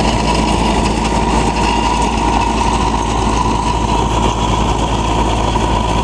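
Engine running steadily under even load, driving a circular trencher, with a constant whine over the engine noise.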